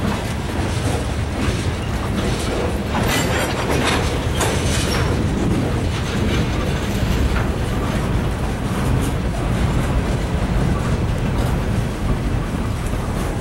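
Freight train tank cars and covered hopper cars rolling past close by: a steady rumble with the clickety-clack of steel wheels over the rail. About three to five seconds in, the wheel noise turns brighter and sharper for a couple of seconds.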